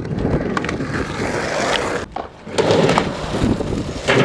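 Skateboard wheels rolling on concrete, with a few sharp clacks. The rolling drops out briefly about two seconds in and then comes back louder.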